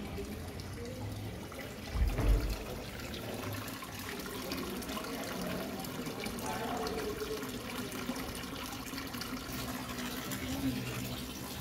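Water running steadily from the two spouts of a wall fountain into a stone basin. There is a brief low thump about two seconds in.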